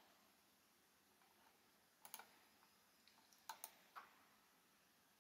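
Near silence with a few faint computer mouse clicks, a couple about two seconds in and a few more around three and a half to four seconds.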